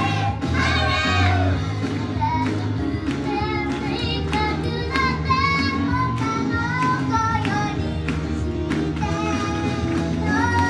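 Young girls singing live into microphones in unison over upbeat pop music with a steady beat.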